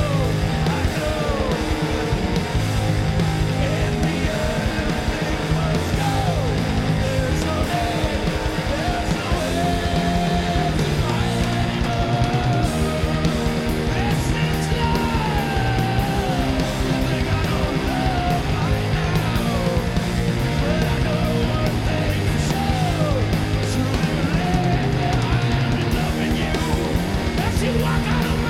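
Hard rock band playing live: electric guitar and drums, with a male lead vocal sung over them.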